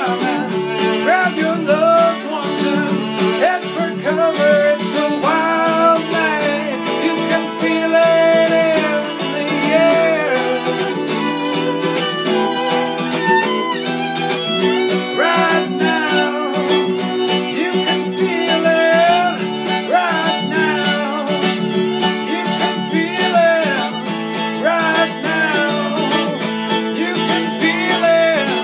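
Fiddle playing a melody with gliding, sliding notes over a steadily strummed acoustic guitar: an instrumental country-folk jam with no singing.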